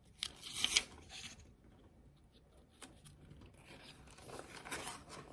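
Paper rustling as the pages of a picture book are handled and a page is turned, with a brief louder rustle in the first second and more rustling near the end as the page turns.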